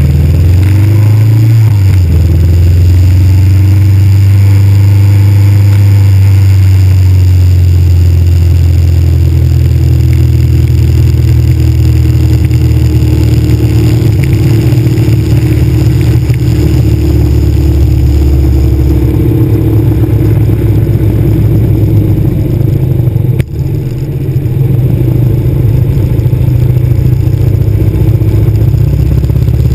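Cruiser motorcycle engine running under way, heard loud and close from its own handlebars. The engine pitch rises over the first couple of seconds as it accelerates, then holds steady. The sound drops briefly about 23 seconds in.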